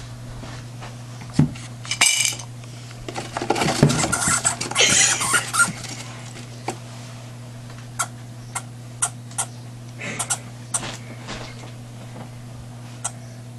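Hamsters scuffling in their cage: a short high squeak about two seconds in, then a few seconds of dense clattering and scrabbling, then scattered sharp clicks, over a steady low hum.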